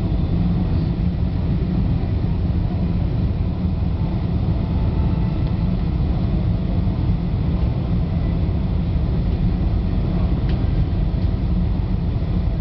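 Steady low rumble of engine and airflow noise inside the cabin of a Boeing 747-400 descending on approach, heard from a window seat over the wing.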